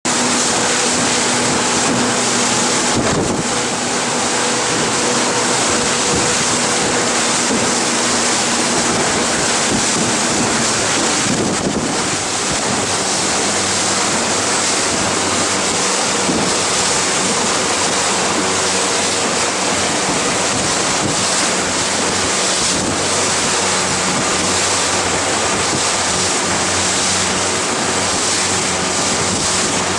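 Wind buffeting the microphone over choppy water, with a steady low engine hum underneath that changes pitch about twelve seconds in.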